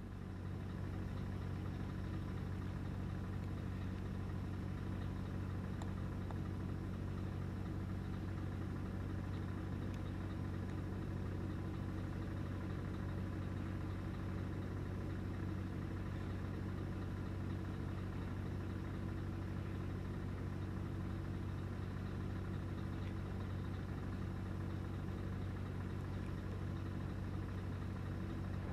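An engine running steadily at one constant pitch: a low, even drone.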